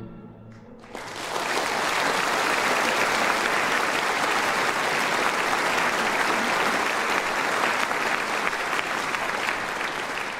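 Theatre audience applauding, starting about a second in and holding steady, then beginning to die away near the end.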